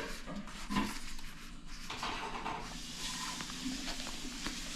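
Packaging being handled during unboxing: a couple of light knocks about a second in, then a steady rustle of packing material.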